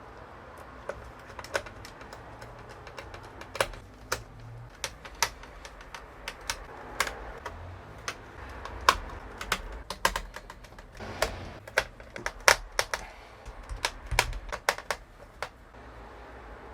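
Irregular sharp clicks and taps of small plastic parts and tools being handled as a DJ controller's wire holders and internal parts are fitted back into its case.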